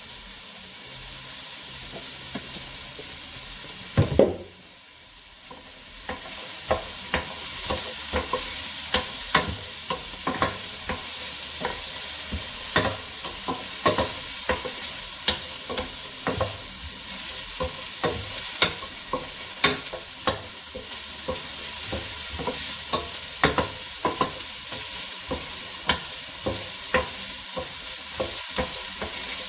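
Chopped onions sizzling in hot oil in a frying pan as they sauté toward translucent, with frequent clicks and scrapes of a utensil stirring against the pan. A louder knock about four seconds in, after which the sizzle dips briefly and builds again.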